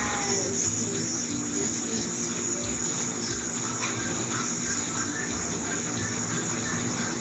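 Crickets chirping in a steady high-pitched trill.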